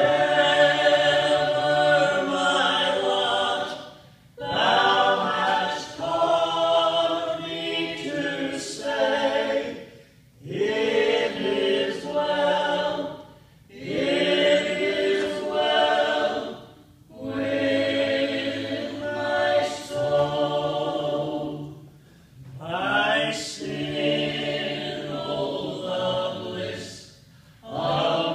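A small group of men's and women's voices singing together in harmony, in phrases of a few seconds each with short breath pauses between them.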